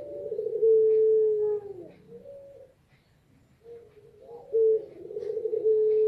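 Female puter pelung, a domestic Barbary dove, cooing: two long coo phrases, the second beginning about three and a half seconds in. Each opens with short rising notes, holds a long steady coo, and drops away at its end.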